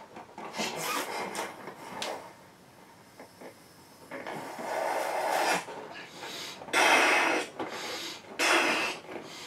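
A person blowing hard into a large latex balloon: about four rushes of breath, each lasting about a second, with short breaths taken between them.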